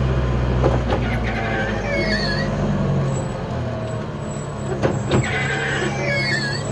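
Cab-over Mitsubishi L300 pickup engine running in first gear under a heavy load, heard from inside the cab; its low hum thins out about a second and a half in. Windscreen wiper blades squeak across the dry glass twice, about four seconds apart, and a few sharp knocks from the cab and load come in between.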